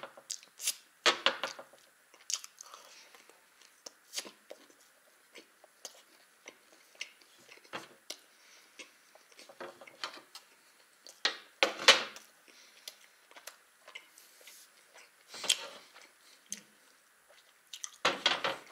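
Close-up chewing and mouth sounds of someone eating a soft baked fish pie: irregular wet smacks and soft crunches. Near the end a plate slides on the tray.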